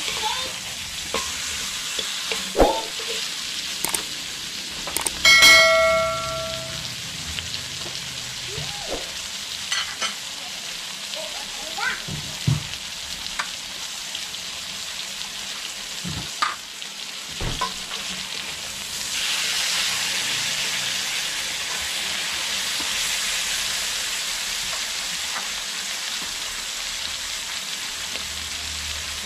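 Food sizzling in a hot frying pan, with scattered knocks and scrapes of a utensil against the pan. About five seconds in, a metal clang rings on for about a second, the loudest sound here. The sizzling grows louder about nineteen seconds in.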